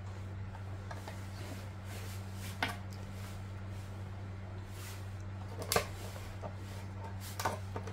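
A steady low hum with a few light plastic clicks and taps from a formula scoop and can being handled, the sharpest about six seconds in.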